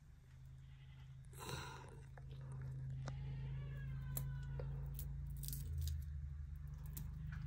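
A round hand stone rubbing and knocking on a flat grinding stone (Nepali silauto and lohoro) as spices are ground: one short scrape about a second and a half in and scattered light clicks. A steady low hum grows louder underneath, and faint high wavering calls come around three to four seconds in.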